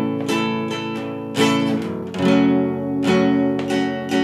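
Nylon-string classical guitar strumming chords in a steady rhythm, a strum roughly every second with the chord ringing on between strokes.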